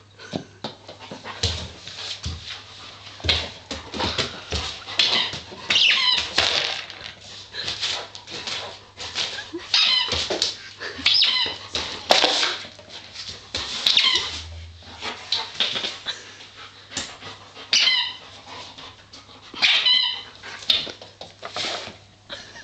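Dog chewing and worrying a squeaky toy: short, wavering, high squeaks come again and again, a few seconds apart, among rustling and knocks on a wooden floor.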